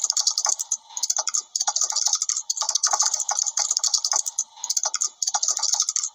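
Computer-keyboard typing sound effect: rapid key clicks in runs of about a second, broken by brief pauses, matching text typing itself out on screen.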